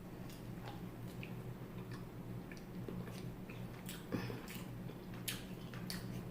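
Faint chewing of a crispy fried chicken sandwich: scattered small crunches and mouth clicks over a steady low hum.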